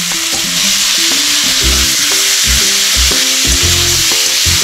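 Fried pointed gourd and prawns sizzling in hot oil in a karahi as a metal spatula stirs them into the spiced potato masala. Background music plays over it.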